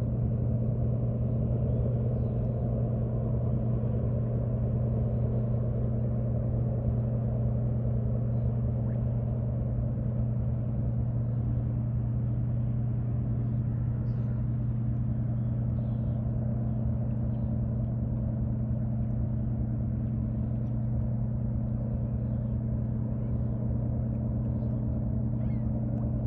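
Low, steady engine drone of the Great Lakes bulk carrier, with a constant deep hum that does not change in pitch or loudness.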